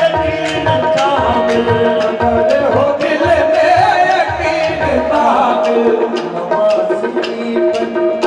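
Qawwali music: held harmonium tones with a wavering melody over tabla and dholak-style drumming, with sharp strokes about twice a second keeping the beat.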